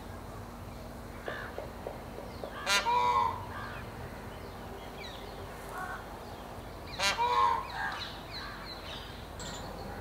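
Indian peafowl giving its loud alarm call twice, about four seconds apart, each call a quick run of a few notes.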